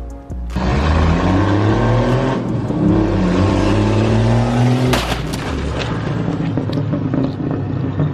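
Jeep engine accelerating hard, its pitch climbing for about four seconds. About five seconds in there is a sharp crash of impact, and the engine then runs on at a lower pitch as the Jeep slows.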